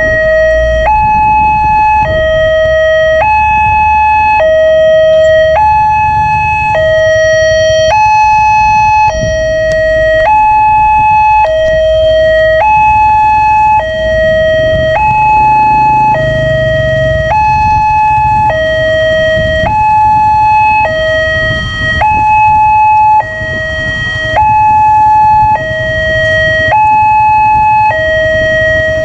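Railway level-crossing warning alarm sounding through its loudspeaker: an electronic two-tone signal alternating between a lower and a higher note, each held about a second, repeating steadily. It warns that a train is approaching while the barrier is down.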